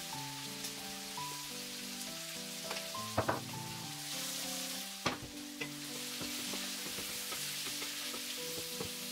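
Diced onions and bell peppers sizzling in oil in a frying pan, stirred with a wooden spatula, with sharp knocks about three and five seconds in. Background music with held notes plays over it.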